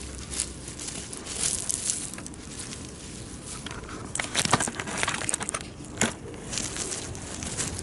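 A gloved hand digging and scraping in stony, gravelly soil to work nobiru (wild onion) bulbs loose, with irregular crunching and small stones clicking. The sharpest crunches come about four and a half seconds in and again at six seconds.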